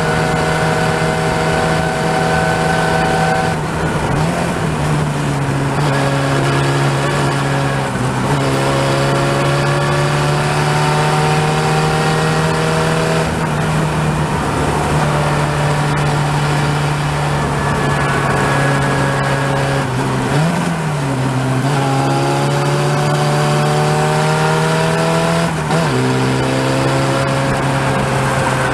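Open-wheel formula race car's engine heard from on board at racing speed, revs climbing steadily and dropping sharply at several gear changes, with brief throttle blips.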